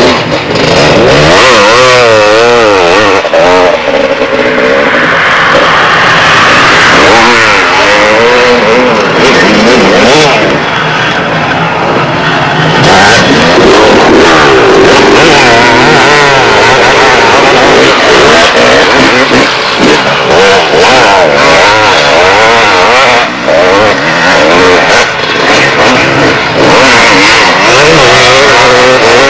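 Two-stroke motocross bikes, a Honda CR500 and a Suzuki RM250, ridden hard, loud throughout. The engine note rises and falls quickly and over and over with the throttle and gear changes.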